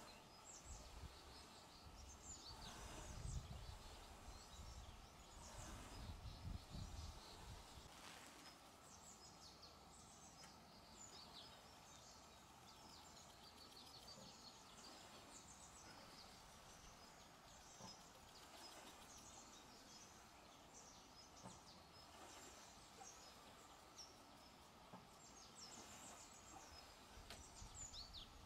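Faint birds chirping outdoors: many short, high calls scattered throughout over a quiet background, with two spells of low rumble in the first several seconds.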